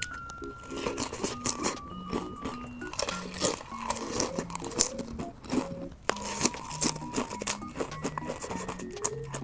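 Potato chips crunching as they are bitten and chewed, an irregular string of crisp crunches, over light background music with a simple plinking melody.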